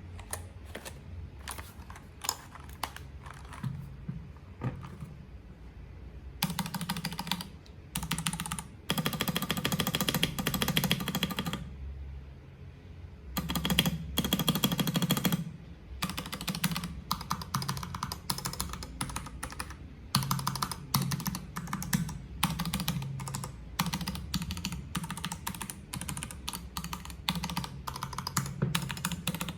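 Typing on a Keycool KC84 mechanical keyboard with PBT double-shot keycaps. Scattered keystrokes come first, then three dense runs of very fast keystrokes, then steady typing.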